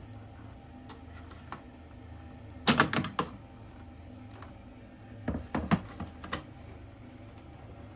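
Plastic clicks and knocks from handling the drying filter of a Panasonic NA-VX9900 drum washer-dryer and its housing. A quick cluster of clicks comes about three seconds in, and a second, sparser cluster comes a little after five seconds.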